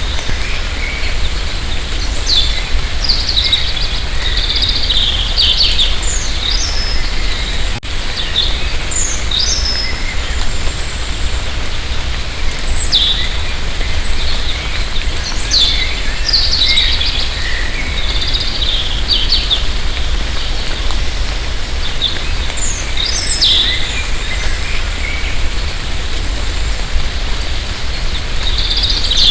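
Light rain falling in a forest as a steady hiss with a low rumble, while several birds chirp and trill on and off throughout.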